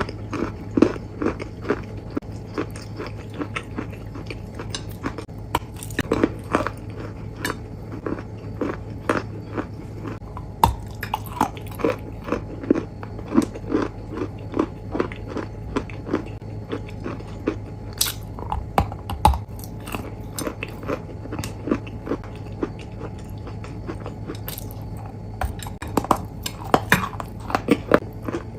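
Close-miked eating: crunchy food being bitten and chewed, a dense run of small irregular crunches and crackles over a steady low hum.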